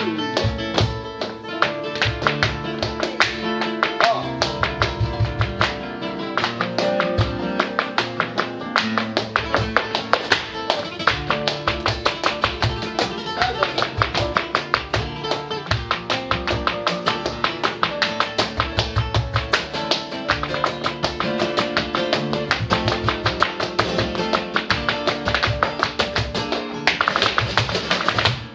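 Flamenco soleá played on two acoustic guitars, under a dancer's fast footwork (zapateado) on a wooden stage, with hand-clapping (palmas) and a cajón, giving a dense run of sharp taps and strikes throughout.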